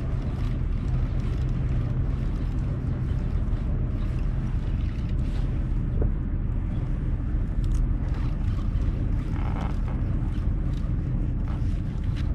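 Steady low drone of the kayak's motor running under way.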